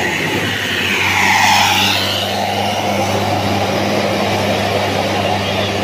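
A bus driving past close by: a steady low engine drone under tyre and road noise that swells to its loudest about a second and a half in, then eases.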